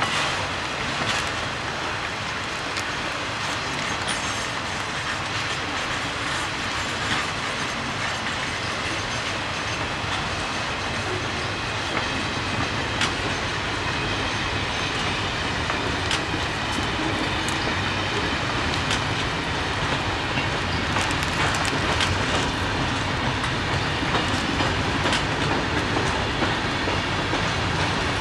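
Freight cars of a long freight train rolling past with a steady rumble, their wheels clicking over rail joints every second or two.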